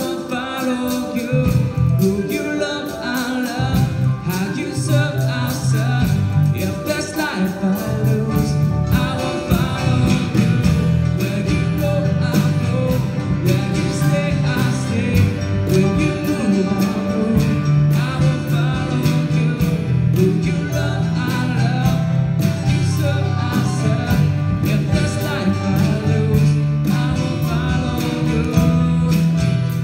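Live worship band playing a pop-style song: strummed acoustic guitar and electric bass under a female lead vocal.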